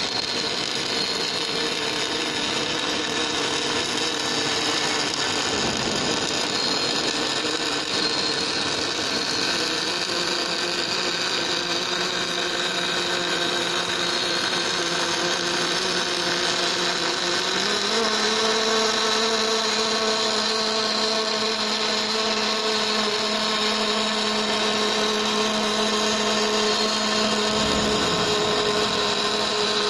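Automatic pipe inner-wall cladding welder laying an overlay weld: a steady hiss from the welding arc over a machine hum, the hum stepping up in pitch a little over halfway through.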